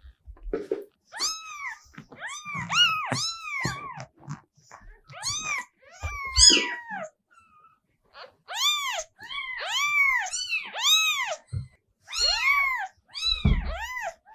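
Newborn kitten mewing, calling for its mother: a long run of short, high-pitched mews that rise and fall in pitch, about two a second in bursts, with a pause about seven seconds in. A few soft low bumps come in between.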